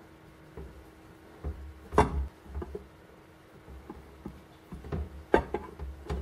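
Scattered light knocks and clicks as the weld-patched steel mortar part is handled and shifted on the work mat, the two sharpest about two seconds in and five and a half seconds in, over a faint steady hum.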